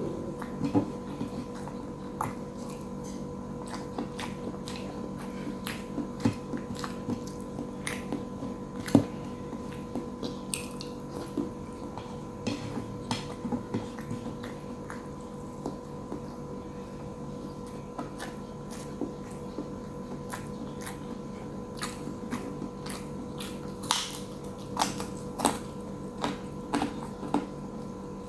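Close-up eating sounds of a person chewing a meal of fried catfish with tofu, tempeh and crackers: irregular wet smacks and sharp clicks, a few louder ones near the end, over a steady low hum.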